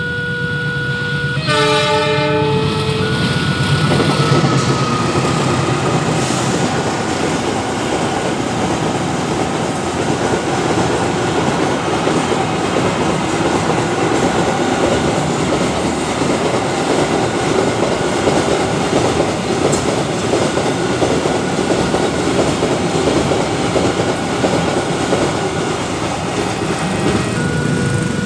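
Level-crossing warning signal sounding steady electronic tones, then a train horn blown briefly about two seconds in. After that, a long container freight train rumbles past with its wagons clacking over the rail joints. The warning tones stand out clearly again near the end as the train clears.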